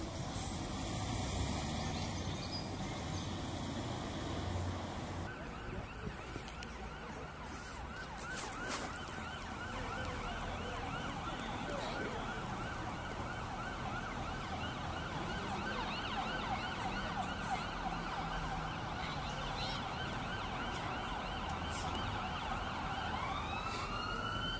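Emergency vehicle siren sounding over road traffic: a steady high tone with rapid small warbles from about five seconds in, then long rising wails near the end.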